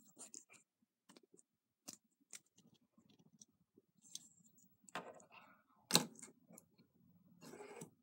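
Faint scattered clicks and brief rustles of handling, with one sharper click about six seconds in.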